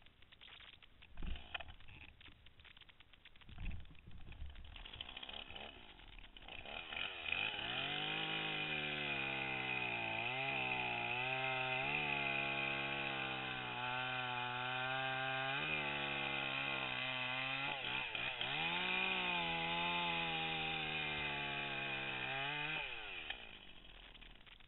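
Chainsaw engine revving up about a quarter of the way in and running at high speed with several brief dips in pitch, then winding down near the end. Before it starts there are two short knocks.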